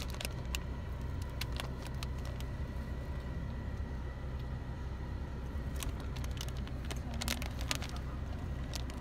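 Steady low hum of a car's engine idling, heard from inside the cabin, with a few faint clicks now and then.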